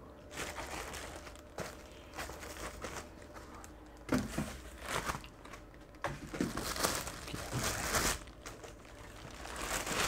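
Packaging crinkling and rustling in irregular handfuls as a small PC case is unwrapped, busier in the second half.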